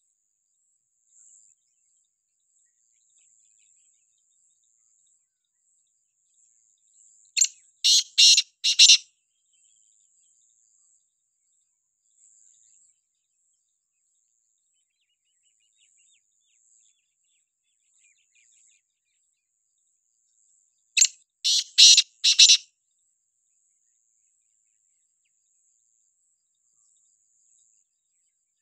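Black francolin calling: two bouts of its loud call, each a quick run of about four notes lasting a second and a half, one about a quarter of the way in and one about three-quarters in. A faint steady high hiss runs underneath.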